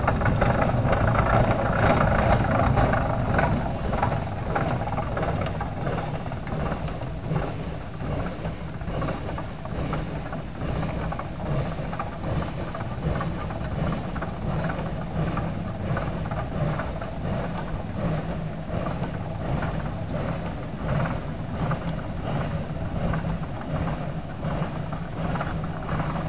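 1918 Nichols & Shepard 20-70 single-cylinder steam traction engine running under way, its exhaust beating in a steady, even rhythm over a continuous hiss of steam, louder for the first few seconds.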